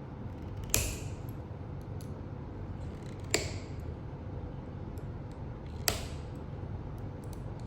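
Three sharp clicks, about two and a half seconds apart, over a steady low hum.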